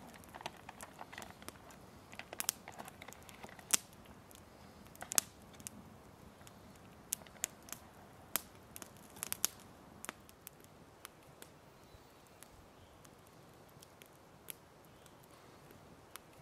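Campfire of burning logs crackling, with scattered sharp pops, a few in quick clusters, thinning out over the second half.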